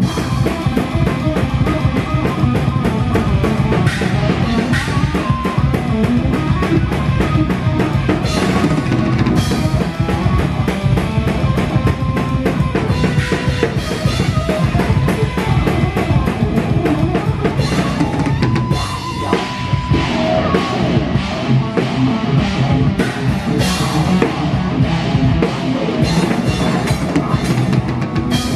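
A drum kit played live with a band, picked up by a camera's own microphone right beside the kit: fast, dense bass drum strokes, snare and cymbals are the loudest, with the rest of the band behind them.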